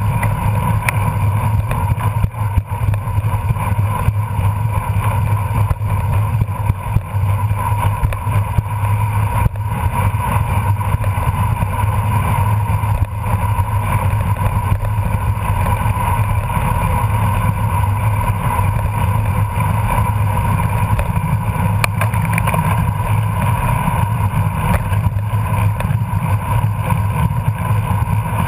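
Steady, loud rush of wind over the camera microphone and tyre noise on pavement from a road bicycle riding at over 20 mph.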